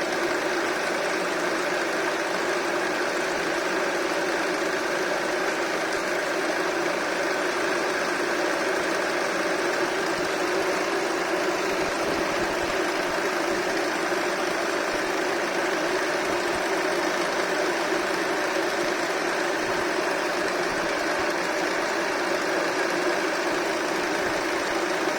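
Honda Accord's K24 2.4-litre four-cylinder engine running steadily at an even speed, with a rattling noise from the engine.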